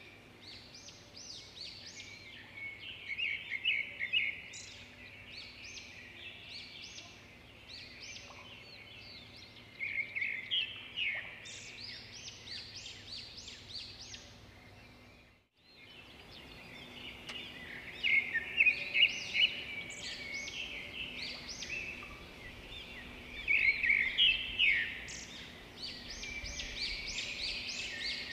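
Caged red-whiskered bulbul singing: repeated bursts of quick, clear, warbling phrases, the bird's territorial 'fighting' song. The song breaks off for a moment about halfway through, then resumes.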